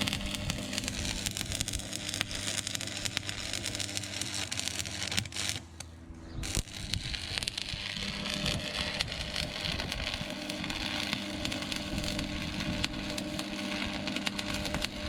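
Electric arc welding on a steel frame: a steady crackle over a low hum, with a short break about six seconds in as the arc stops and restarts.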